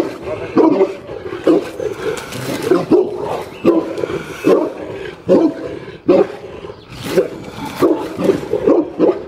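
Boerboels (South African mastiffs) barking at a person across a chain-link fence: deep guard barks repeated roughly once a second.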